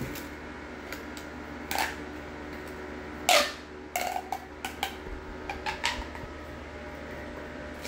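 Corrugated plastic pop tubes being stretched and pushed together, giving a scattering of sharp pops and clicks, the loudest a little over three seconds in.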